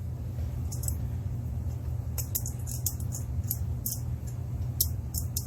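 Small sharp clicks and light rattles of gear being handled, scattered over a steady low hum.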